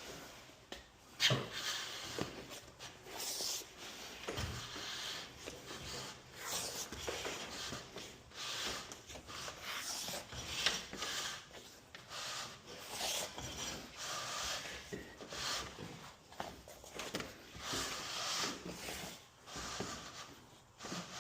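Irregular scraping and rubbing strokes, roughly one a second, with a sharp knock about a second in: hand work on garage door hardware.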